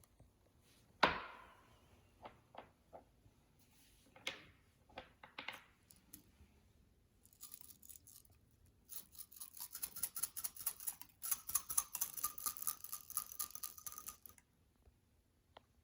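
Slime being handled. A sharp knock with a short ring comes about a second in, then scattered soft clicks. From about nine seconds a dense run of rapid crackling pops lasts some five seconds and stops suddenly.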